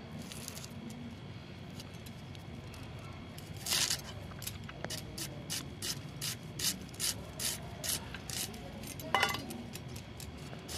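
Onions being finely chopped: regular crisp cutting strokes, about three a second, starting about four seconds in.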